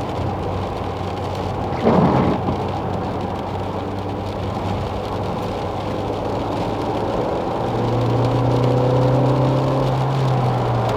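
Opel Astra J's 1.4 turbo four-cylinder A14NET engine running as the car drives on a wet road, with steady road noise and a short thump about two seconds in. From about seven and a half seconds in the engine note grows stronger and rises a little as the car accelerates, with no knock heard.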